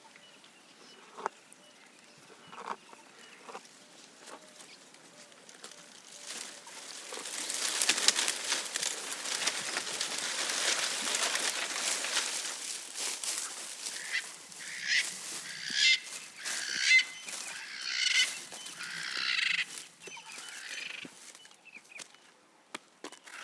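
Leafy branches rustling loudly for several seconds as a giraffe browses, then a run of short bird calls, about half a dozen in quick succession, before it goes quiet again.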